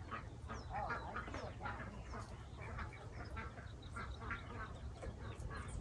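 Birds calling in a steady run of short, quacking notes at irregular intervals, over a low steady rumble.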